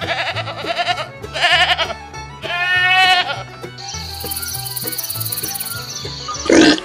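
Three quavering bleats from a goat or sheep in the first three seconds, over steady background music. A thin steady high tone follows, and a loud lower sound begins just before the end.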